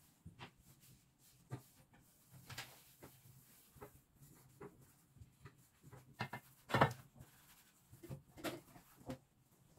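A cloth rubbing over kitchen cabinet doors, with light knocks and clicks as a cabinet door is opened and handled; the loudest knock comes about two-thirds of the way through.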